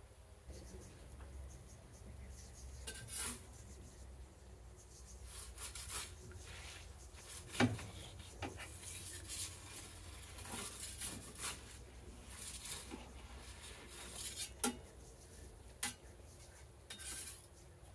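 Perforated metal turning peel scraping and clinking on the stone floor of a charcoal-fired Gozney Dome pizza oven as a pizza is turned, with scattered scrapes and clicks and one sharper knock about eight seconds in.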